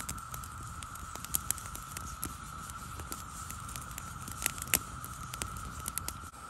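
Small wood campfire crackling, with irregular sharp pops and snaps, around a green bamboo cooking tube in the flames. A steady thin high tone runs underneath.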